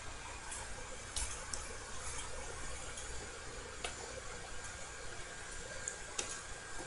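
Low steady background hiss of a quiet room, with a few faint computer mouse clicks.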